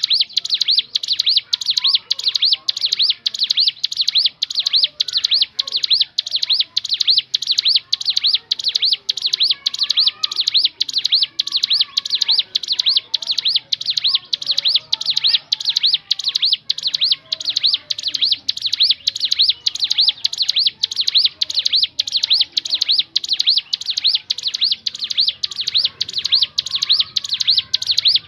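Ciblek gunung, a mountain prinia, calling: an unbroken, even run of sharp high-pitched notes, about three a second, used as a lure call for other ciblek gunung.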